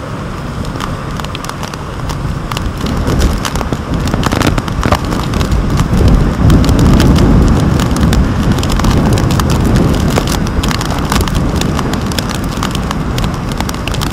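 Storm-force wind buffeting a waterproof camera housing, with many irregular taps of rain striking the housing. The gusts grow strongest about halfway through.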